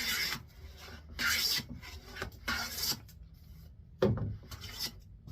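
Hand plane taking long strokes along a board edge, three hissing passes of the blade through the wood with its blade set slightly deeper, then a louder thump about four seconds in.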